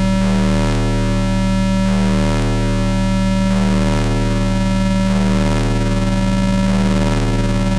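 Astrogorus synthesizer playing a dense, distorted drone: a steady low tone that swells about once a second under sweeping, phasing overtones.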